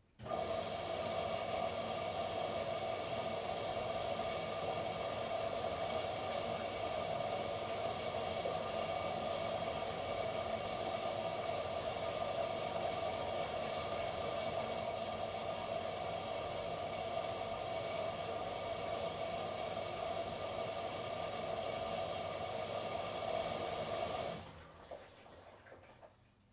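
Miele washing machine taking in water through its fill valve: a steady hiss of water rushing into the drum with a faint whine. It switches on abruptly and cuts off a couple of seconds before the end, tailing away briefly.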